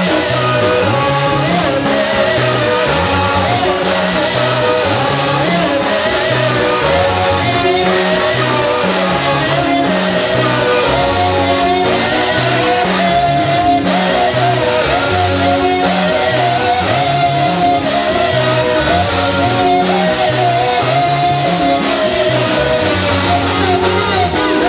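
Upbeat live worship music: electric guitar over a walking bass line, with singing.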